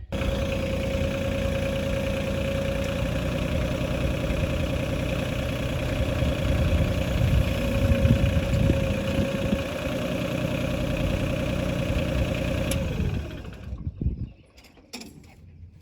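A machine's engine running steadily with a constant whine over a low rumble, stopping about 13 seconds in.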